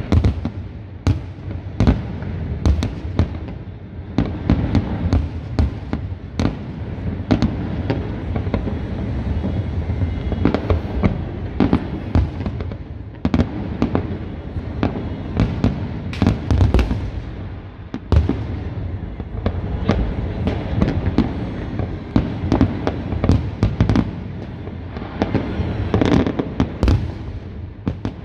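Aerial fireworks display: a dense, irregular barrage of bangs and crackles, several a second, over a continuous low rumble.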